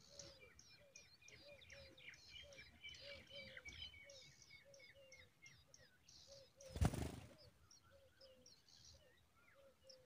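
Small birds chirping at a tailorbird nest: a fast run of short, high chirps over a lower short note repeating about twice a second. About seven seconds in there is one brief, loud flutter, the adult tailorbird's wings as it flies off the nest.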